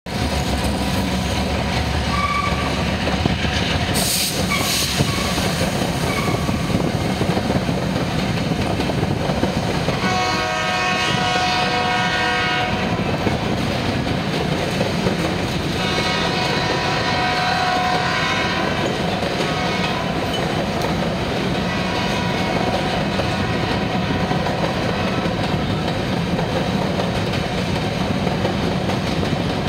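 Canadian Pacific freight train passing a grade crossing: diesel locomotive running as it goes by, then a long string of covered hopper cars rolling and clacking over the rail joints. A train horn sounds two long blasts, about ten and sixteen seconds in.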